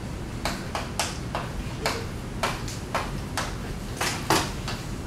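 About a dozen light, sharp taps or clicks at an irregular pace of two or three a second, the loudest about four seconds in, over a steady low hum.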